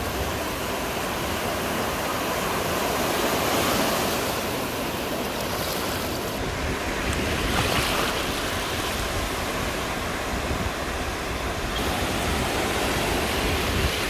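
Ocean surf: the steady rush of small waves breaking and washing through shallow water, swelling a little about four and eight seconds in.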